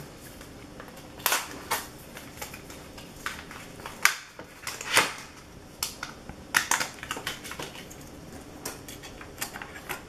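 Hands handling a DDR4 laptop memory module (SO-DIMM) and fitting it toward its slot in the mini PC: a scatter of short, sharp plastic clicks and taps at irregular intervals.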